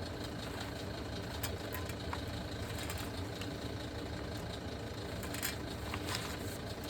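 Steady machine hum, with a few faint clicks and scrapes of a brake piston being worked by hand into a caliper bore.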